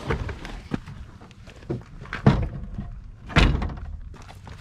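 Several knocks and thunks as someone gets out of a 1982 Chevrolet Camaro, the loudest a heavy door-shutting thunk about three and a half seconds in.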